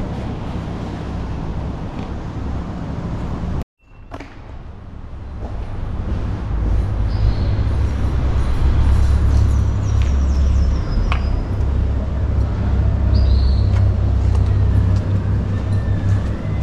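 A steady low rumble that cuts out completely for a moment about four seconds in, then builds back up, with a few faint high chirps later on.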